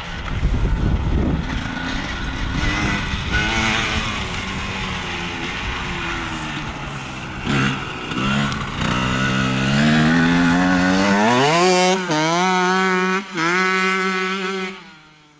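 Dirt bike engine revving hard as it is ridden, its pitch climbing and dropping with the throttle and gear changes. Near the end it revs high, cutting back briefly twice, then the sound drops away suddenly.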